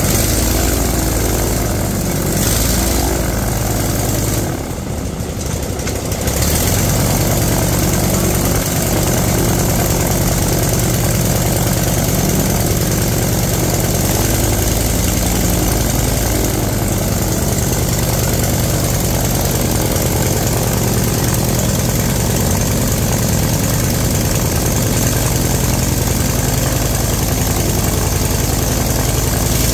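Small five-cylinder radial engine running steadily with its wooden propeller spinning; the sound dips briefly about five seconds in, then runs on evenly.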